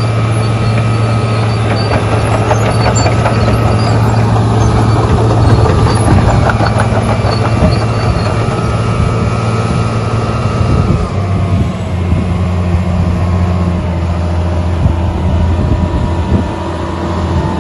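Wirtgen W1200F cold planer's diesel engine running steadily as the machine drives on its crawler tracks, with some rattling in the first half. A whining tone drops a little in pitch about eleven seconds in.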